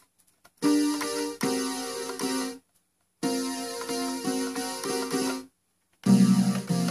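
Synthesizer played from a DIY NanoEgg keyboard: three short phrases of chords and notes, each with several new notes struck in turn, separated by brief silences.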